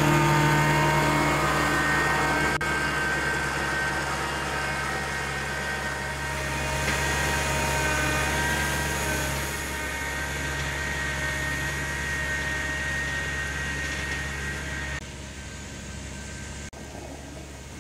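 A motor running steadily with a hum and several high whining tones, dropping in level about three seconds before the end.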